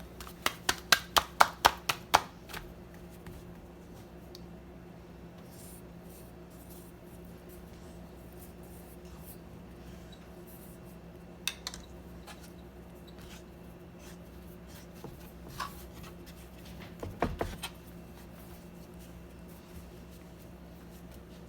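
Kitchen handling sounds while dough is worked: a quick run of about eight sharp taps in the first two and a half seconds, then a steady low hum with an occasional knock, and a thump with a few clicks about three quarters of the way through.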